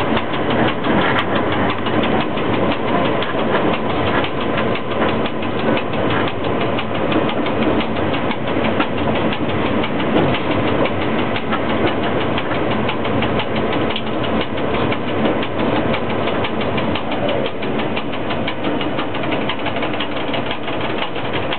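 Inside the cab of a ChS4T electric locomotive under way: a steady running noise mixed with fast, dense rattling and clatter.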